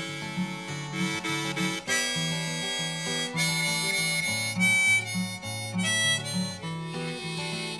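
Instrumental break in a song: a harmonica playing a melody with some long held high notes, over acoustic guitar accompaniment.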